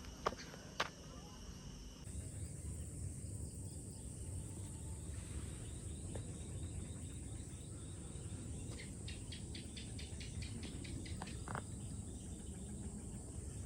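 Insects, crickets or similar, trilling in one steady, high-pitched drone that starts about two seconds in, over a low rumble. A couple of sharp clicks come in the first second, and a quick run of about a dozen rapid chirps comes about nine seconds in.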